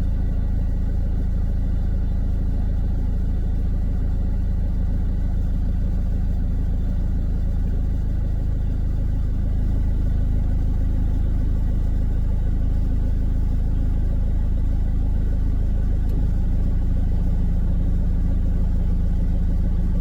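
Car engine idling, a steady low hum heard from inside the closed cabin.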